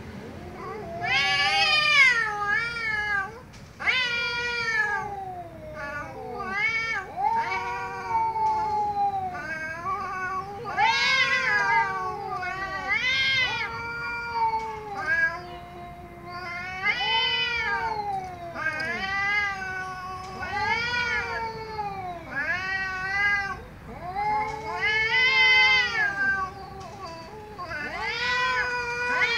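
Two tabby cats yowling angrily at each other in a face-off: more than a dozen long, drawn-out wavering calls, one after another, each rising and falling in pitch.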